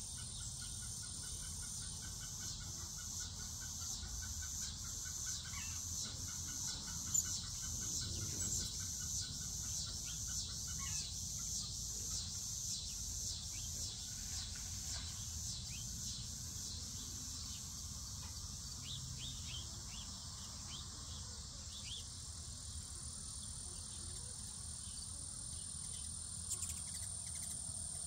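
Steady outdoor chorus of crickets and other insects, a high continuous trilling, with scattered short bird chirps and a low background rumble. A single sharp tick stands out about seven seconds in.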